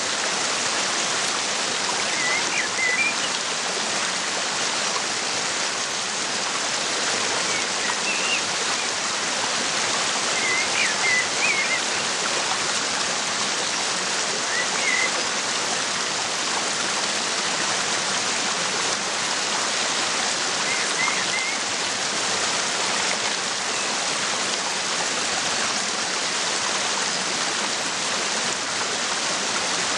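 Waterfall with steady rushing water, with small birds chirping briefly above it every few seconds.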